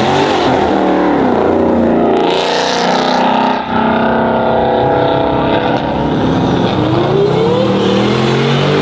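A loud car engine revving hard, its pitch climbing and falling several times, with a short rush of hiss about two and a half seconds in.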